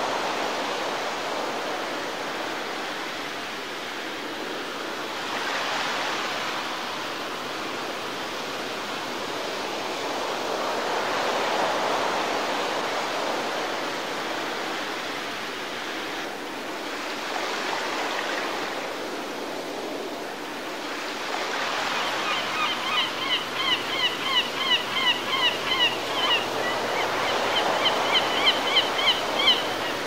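Small waves washing onto a beach, a steady rush of water that swells about every five or six seconds. In the last eight seconds a bird calls in a fast series of short, falling notes, about three a second.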